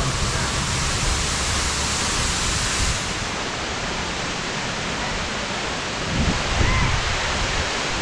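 Waterfall plunging down a rock face: a steady rush of falling water, with a short louder swell about two-thirds through.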